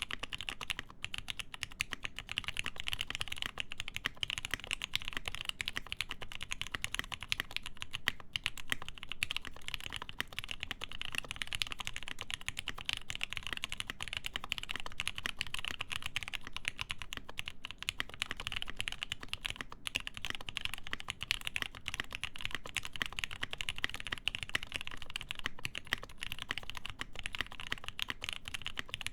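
Continuous fast typing on a Dixie Mech Bauer mechanical keyboard with a full POM plate, lubed Gateron Ink switches and GMK Modern Dolch keycaps. It makes a steady stream of rapid key clicks, with no pauses of note.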